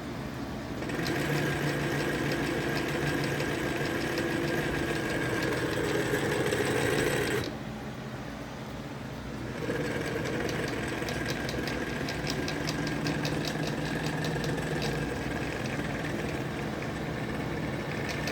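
Westinghouse New Home electric sewing machine running under its foot pedal: a steady motor hum with a rapid, even ticking. It stops about seven seconds in and starts again a couple of seconds later, running smoothly.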